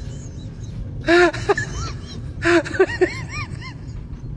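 Dog-like whimpering: short whines that rise and fall in pitch, a couple about a second in and a quick run of four or five a little before three seconds.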